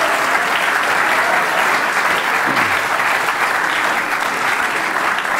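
Cabaret audience applauding, a steady, loud clapping.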